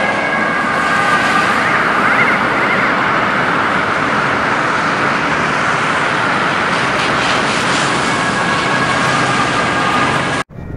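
Emergency vehicle sirens sounding over traffic noise, with a fast rising-and-falling yelp about two seconds in. The sound stops abruptly near the end.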